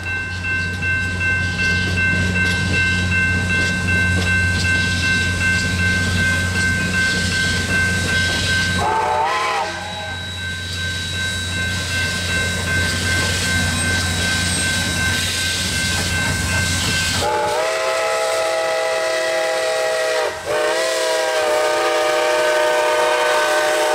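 Steam locomotive whistles blowing long blasts as a steam double-header of a 2-8-0 and a 2-8-2 passes, over the rumble of the working engines. A lower chime whistle sounds briefly about nine seconds in, then again from about seventeen seconds on, its pitch sliding up as each blast starts.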